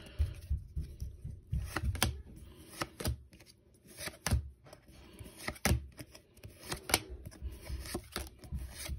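Pokémon trading cards being flipped one by one through a small hand-held stack, with irregular short snaps and rustles of card stock sliding against card stock.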